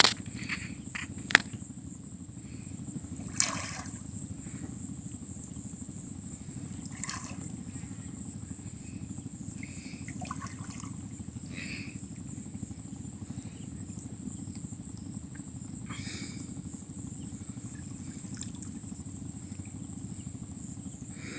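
Steady high-pitched insect drone over a low steady rumble, with occasional short splashes and knocks, the sharpest in the first four seconds, as a gill net is hauled by hand through shallow water.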